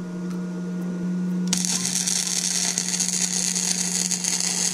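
Gasless flux-core semi-automatic MIG welder (EENOUR MIG120L, 100 V) laying a full weld on a bicycle front fork. Over a steady low hum, the arc strikes about a second and a half in and then crackles steadily.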